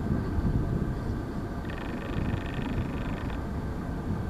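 Slow-moving Union Pacific freight train of tank cars rolling past: a steady low rumble of wheels on rail. A higher-pitched buzzing sound joins in for about a second and a half midway.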